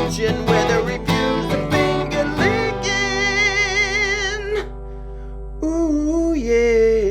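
Outro music: quick strummed guitar notes, then long held notes with vibrato, with a short lull just before five seconds in.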